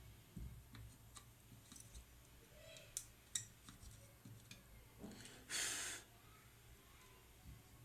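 Faint, scattered small clicks and taps of hands and tools working on a circuit board, with two sharper clicks about three seconds in and a short hiss lasting about half a second near the middle.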